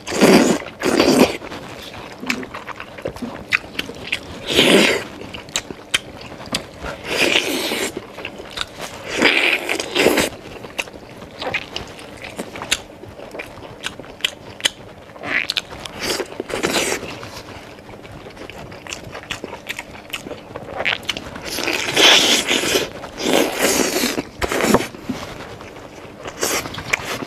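Close-up eating of braised beef ribs: bites and chewing in irregular bursts, with meat being pulled from the bone by gloved hands.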